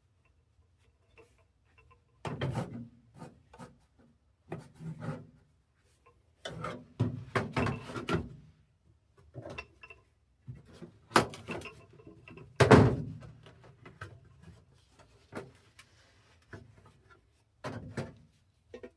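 Irregular clunks, scrapes and knocks of a furnace inducer motor and its mounting bracket being handled and fitted into place, with one sharp loud knock about two-thirds of the way in.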